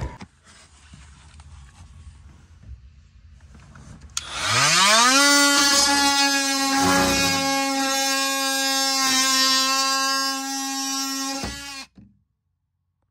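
Cordless Ryobi oscillating multi-tool winding up with a rising whine about four seconds in, then running at a steady high-pitched buzz as its blade works into the plywood wall, and cutting off suddenly near the end.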